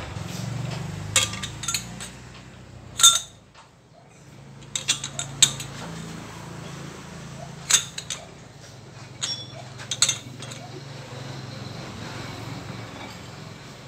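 Chuck key clinking on a four-jaw lathe chuck as its jaws are adjusted to centre a brake rotor: scattered sharp metal clinks with brief ringing, loudest about three seconds in and again near eight seconds. A steady low hum runs underneath.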